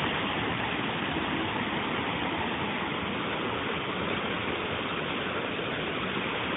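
Rain pouring down in a steady, unbroken rush of water.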